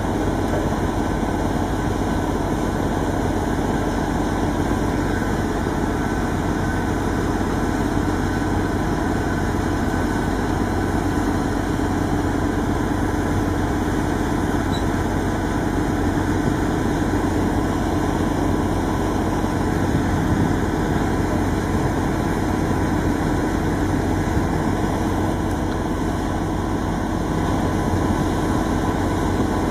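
Truck crane's diesel engine running steadily, with no change in speed.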